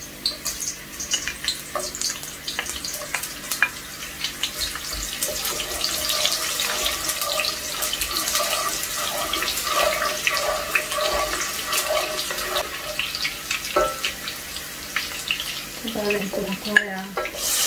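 Sliced onions sizzling and crackling in hot oil in a nonstick pot, stirred now and then with a wooden spatula.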